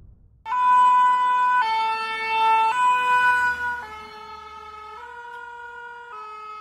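French two-tone emergency siren of a fire-brigade van, switching between two pitches about once a second. It starts suddenly about half a second in, is loud at first and is quieter from about four seconds in as the vehicle goes by.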